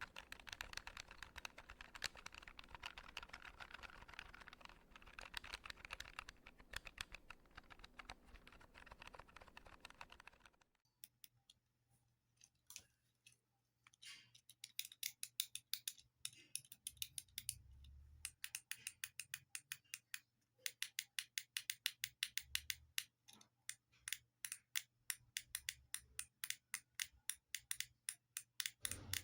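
Buttons and keys being pressed in quick succession for ASMR: dense, rapid clicking for about ten seconds that stops abruptly, then after a short pause runs of sharp, crisp clicks, several a second.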